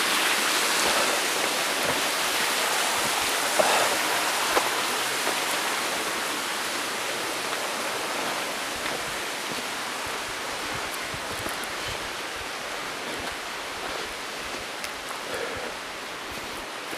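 Waterfall rushing: a steady, even noise of falling water that slowly grows fainter, with a couple of faint knocks about four seconds in.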